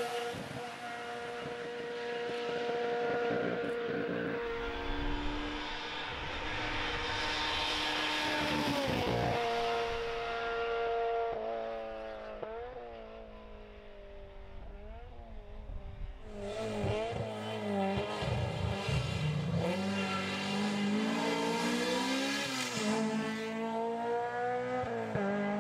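Hillclimb race car engine running hard at high revs, its note held, then falling and rising again several times. It is quieter around the middle and loud again in the second half.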